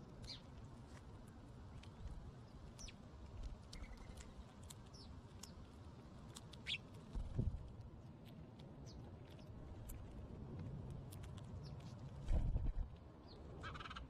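Background birds chirping: scattered short, high chirps over a steady low outdoor hum, broken by two brief low rumbles, one about seven seconds in and a louder one near the end.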